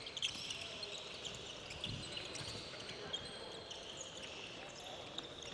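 Faint sneaker squeaks and light footfalls on a wooden sports-hall floor as players hop and shift on one leg, with a soft thud about two seconds in.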